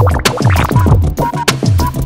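Background electronic music with a fast, steady beat and repeated falling sweeps in the bass.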